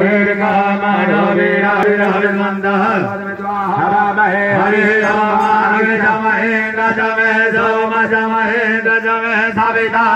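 Priests chanting Sanskrit mantras together for a Maharudrabhishek, an unbroken chant with a steady low hum underneath.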